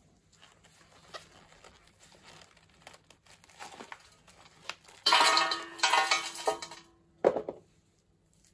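Hands-on handling noise from repotting garden cyclamen: soft rustles and light clicks, then a loud rustling, crinkling burst about five seconds in that lasts under two seconds, and a single short knock a little after seven seconds.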